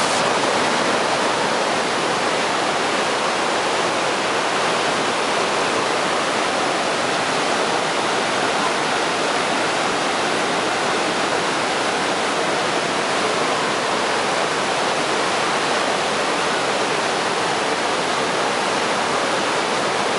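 Iguaçu Falls' Devil's Throat: a great mass of water plunging over the horseshoe-shaped drop, heard close up as a loud, steady rush with no let-up.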